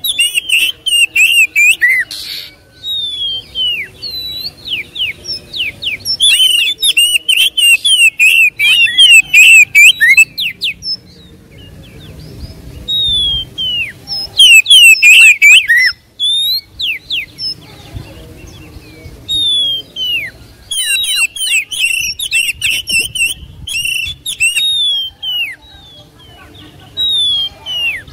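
Oriental magpie-robin (kacer) in full, persistent song: loud bursts of rapid whistled notes, sweeping slurs and trills, with short pauses between phrases. The song is packed with mimicked phrases.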